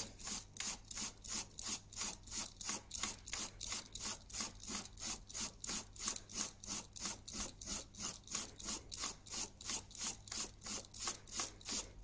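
Stanley folding pocket knife blade being stropped on a strop charged with green polishing compound: quick, even rubbing strokes, about four a second, polishing and keeping the edge keen.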